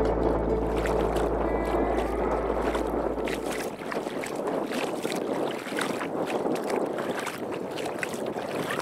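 Bare feet sloshing and splashing through shallow seawater over sandy tidal flats, step after step, the splashes most distinct in the second half.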